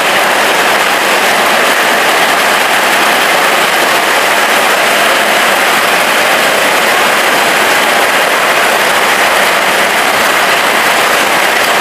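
Heavy rain falling steadily, a loud, even hiss that does not let up.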